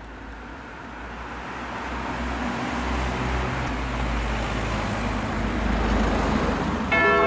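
Road traffic growing steadily louder as a large truck drives past close by. A bell begins ringing just before the end.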